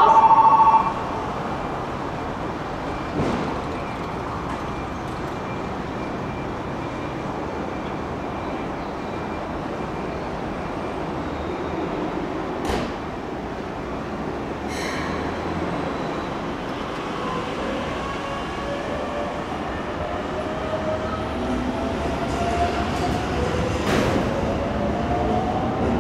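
A Keikyu 600-series local train at a station platform. A loud steady electronic tone cuts off about a second in, then there is a steady hum of the standing train with a few sharp knocks. In the last third the train's traction motors whine with slowly rising pitch as it starts to pull away.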